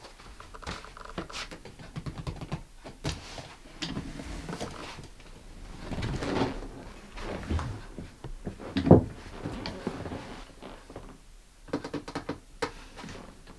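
Irregular clicks, knocks and thuds of objects being handled, with the loudest thud about nine seconds in.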